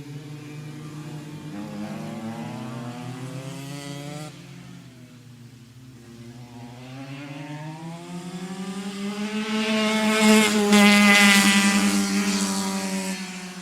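Go-kart engine running at speed, its pitch rising and falling with the revs. It fades somewhat a few seconds in, then grows louder and higher to its loudest around eleven seconds, and drops in pitch and fades near the end.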